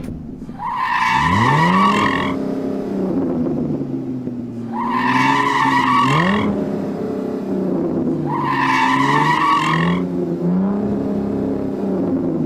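A Porsche's engine revving hard in rising and falling surges, with three bursts of tire squeal from the rear tires breaking loose as the car tries to do donuts. Each squeal lasts a second or so, and they come about four seconds apart.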